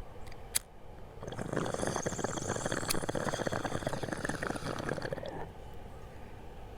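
Water bubbling in a bong as smoke is drawn through it, a steady pull lasting about four seconds that stops abruptly. A single sharp click comes shortly before it.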